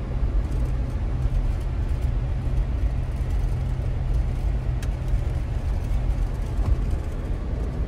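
Car driving along a gravel road, heard from inside the cabin: a steady low rumble of engine and tyres.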